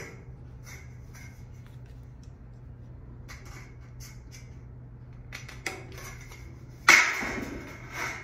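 A metal drywall corner bead being handled, with light clinks and scrapes. About seven seconds in comes a louder, sudden metallic rattle and scrape that fades over about a second. A low steady hum runs underneath.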